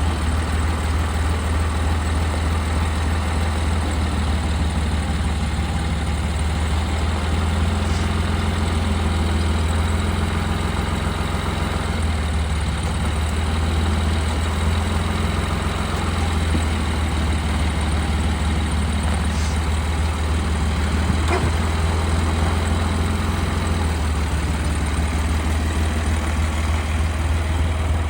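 Old John Deere tractor engine running steadily under light load, its pitch shifting slightly a few times as the throttle or load changes, with a faint click about three quarters of the way through.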